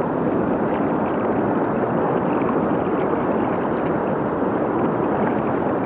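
Steady rush of a flooded river's fast current, an even, unbroken water noise.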